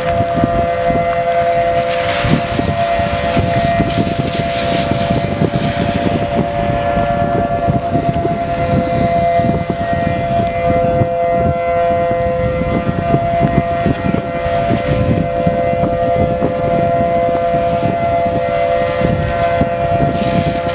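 Outdoor tornado warning siren sounding a steady two-note tone that holds without rising or falling, with wind buffeting the microphone underneath.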